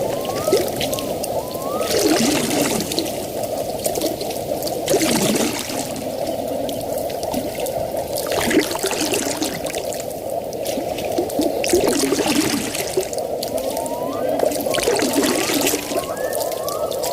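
Water bubbling and trickling, with a hissing swell about every three seconds. Short rising chirps repeat about twice a second near the start and again near the end.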